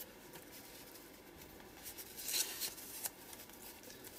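Soft rustling of torn paper pieces being slid and pressed flat by hand on a journal page, with a brief louder rustle about two and a half seconds in and a light tap just after.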